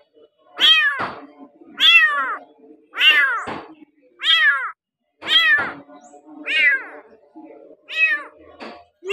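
A young kitten meowing over and over: seven short, high-pitched calls about a second apart, each dropping in pitch.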